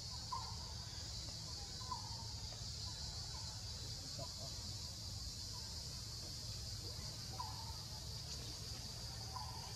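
Steady high-pitched drone of forest insects, with short faint chirping calls every second or two and a low rumble underneath.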